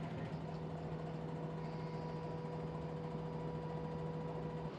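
Steady low mechanical hum with a couple of faint constant tones above it, the running of engines or ground machinery on an airport apron.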